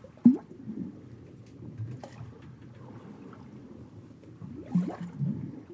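Water slopping and bubbling in the bilges of a gaff-rigged sailing ketch, over a low, steady wash of distant sea. There is a sharp slap of water just after the start, and a gurgling surge near the end.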